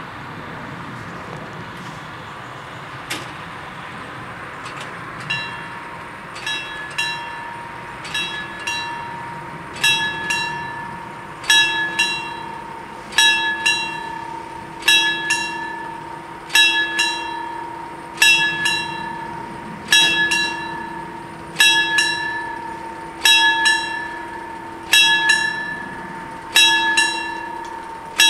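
Level-crossing bells starting to ring about five seconds in, struck over and over in a steady rhythm, growing louder over the first few strokes and then holding steady, with a steady tone beneath them. It is the warning that a train is approaching and the barriers are about to come down.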